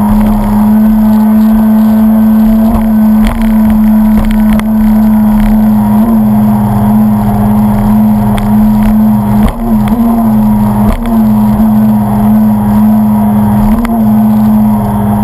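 Stand-up jet ski's engine running at high, steady revs under way. Its pitch dips briefly a few times, with sharp knocks as the hull slaps the chop.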